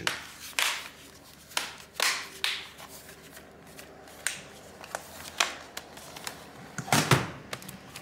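Bottom cover of a Lenovo ThinkPad T480 laptop being pressed back onto the chassis, its plastic clips snapping into place in a scattered series of sharp clicks and crunches. The loudest come about seven seconds in.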